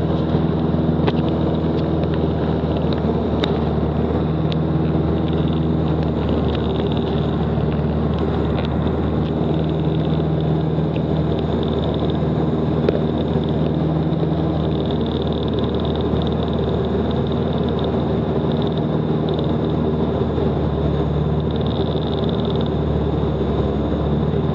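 Steady drone of an RV light aircraft's piston engine and propeller in cruise, with rushing air noise.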